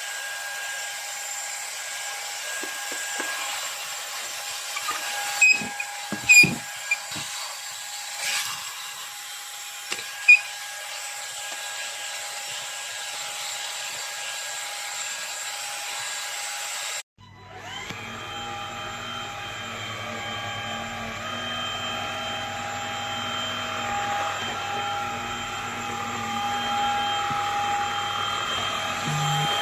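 MONSGA MV3 cordless stick vacuum's motor running with a steady high whine, with a few short knocks a few seconds in. About halfway through, the sound cuts out for a moment, then the motor whirs back up, its whine rising before it settles into a steady run.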